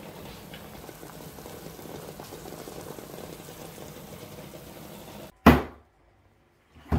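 Pots of water at a rolling boil, a steady bubbling that cuts off abruptly about five seconds in. It is followed by a single loud, sharp knock.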